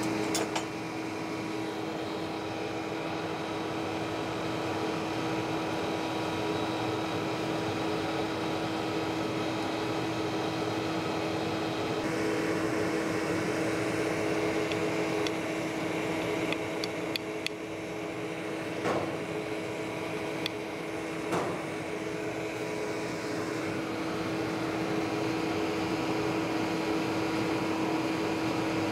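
Coal forge's electric air blower running with a steady hum, with a few short sharp clicks past the middle.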